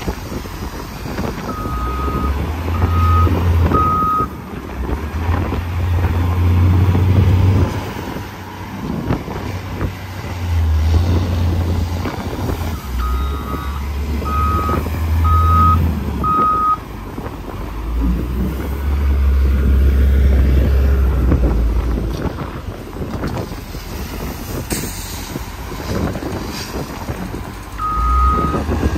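A heavy diesel vehicle's engine rumbling, swelling and easing repeatedly as it works, with a reversing alarm beeping in short runs of three or four beeps: about two seconds in, in the middle, and again near the end.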